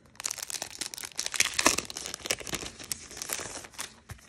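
Clear plastic cellophane sleeve around a pack of papers crinkling as it is handled and turned over, a dense run of irregular crackles.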